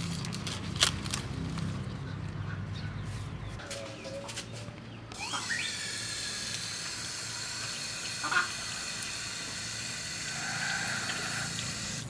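A few sharp snaps and rustles as long leaves are cut from the plant, then about five seconds in water starts running steadily from a garden hose onto the leaves as they are washed.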